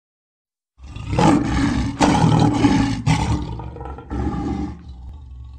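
Lion roar sound effect: silence, then about a second in a loud roar in several surging pushes that gradually fade away.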